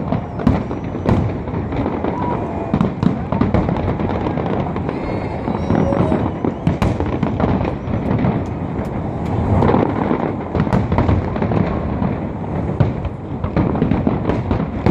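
Aerial fireworks display: a continuous barrage of booming shell bursts and sharp crackling reports, with a few whistling shells about five seconds in.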